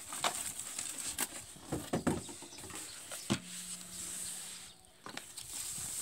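Thin plastic bag wrapped around a pressure cooker rustling and crinkling as it is handled and pulled open, with a few sharp clicks and knocks of handling.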